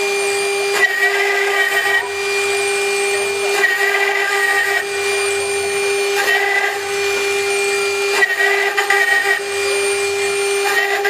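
Water-cooled 4.5 kW spindle of a stone CNC router engraving stone, with a steady high whine. A harsher cutting sound swells for about a second every two to three seconds.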